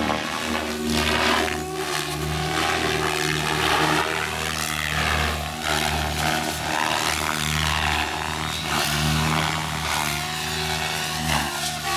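Agile 7.2 RC helicopter in flight: a steady rotor drone with a whine on top, swelling and fading as it flies its passes.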